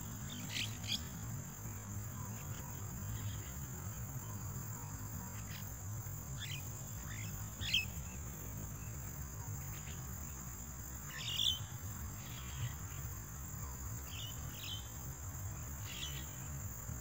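Javan mynas giving short, scattered calls, a dozen or so, the loudest about eight and eleven seconds in, over a steady high hiss.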